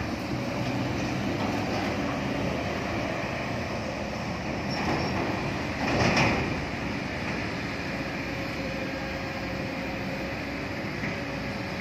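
Steady roadside traffic noise with heavy diesel engines running. A motorbike passes about six seconds in, the loudest moment.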